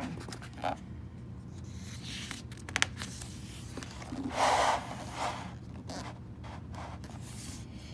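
Pages of a picture book being turned and the book handled: paper rustling and sliding, with a few light clicks and a louder swish of paper about halfway through.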